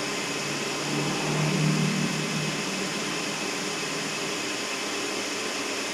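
Steady airflow noise of a 24 V cooling fan from a Lenze 8400 drive, running at speed: a healthy fan, its tachometer signal reading about 413–416 Hz. A low hum swells briefly about a second in.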